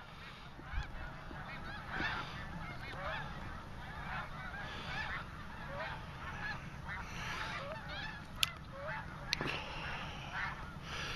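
A large flock of snow geese calling together: a dense, continuous chorus of overlapping high, yelping honks, with a low steady rumble underneath. Two sharp clicks come about two-thirds of the way through.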